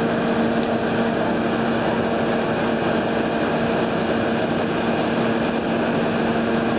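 An engine running steadily at a constant speed, a loud, even drone with a steady hum through it.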